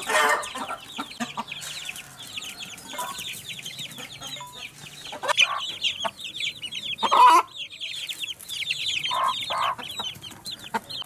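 A brood of chicks peeping continuously in rapid, high, falling chirps, with a few louder clucks from adult chickens breaking in, the loudest about two thirds of the way through.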